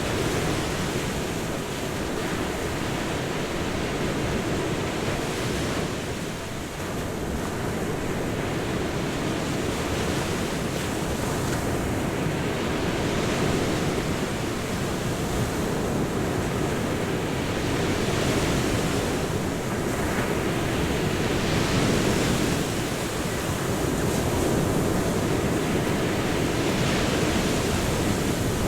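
Ocean waves breaking and washing on the shore in a continuous surging rush, swelling and easing every few seconds.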